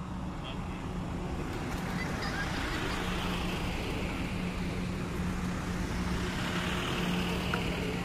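Distant engine noise: a steady low hum under a rushing sound that slowly grows louder.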